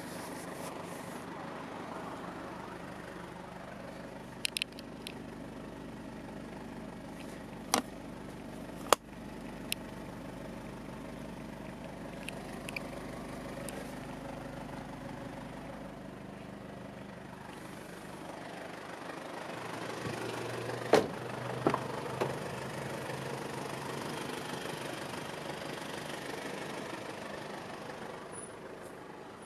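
Mitsubishi Pajero's 2.8-litre four-cylinder turbo diesel idling steadily, heard from inside the cabin. A few sharp clicks and knocks cut through it, the loudest about nine seconds in and another cluster around twenty-one seconds.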